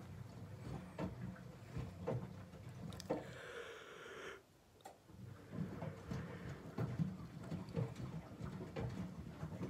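Front-loading washing machines running a wash cycle: motor hum with the soft knocks and patter of laundry tumbling in the drum. A short hiss comes just before a brief pause about halfway through, and then the tumbling starts again.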